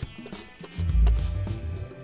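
Background music with a bass line and a drum beat.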